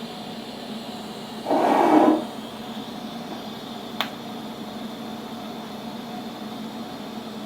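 TIG welding arc running steadily on a steel fitting and sheet-steel oil pan, a constant buzzing hiss. About a second and a half in a louder rush of noise lasts just under a second, and a single sharp click comes about four seconds in.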